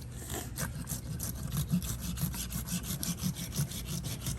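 Knife sawing back and forth through tiger shark tissue in quick, even strokes, about five a second.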